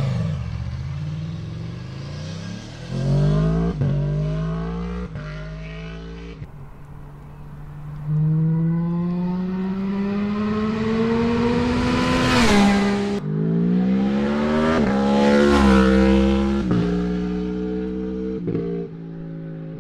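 Aprilia Tuono V4's V4 engine revving as the bike pulls away hard, climbing in pitch through quick gear changes and fading. Then a sport motorcycle accelerates hard up the road, each gear a long rise in pitch cut off by a shift, the loudest pull peaking about twelve seconds in.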